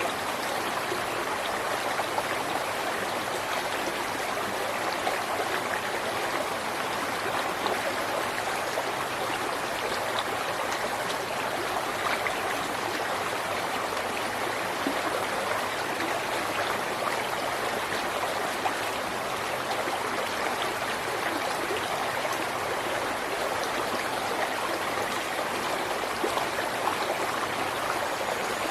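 River water flowing and splashing steadily over rocks, a continuous rushing with fine trickling and gurgling detail.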